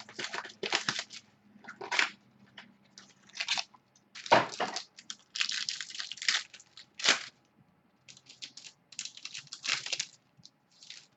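Packaging of a Spectra football trading-card box being torn and crinkled open: a run of irregular rustling, tearing bursts with short pauses between them.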